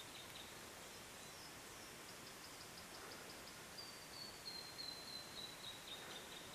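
Faint high-pitched song of a small forest bird: a quick run of short notes, then a long trill that slowly falls in pitch, over the quiet hiss of still bush.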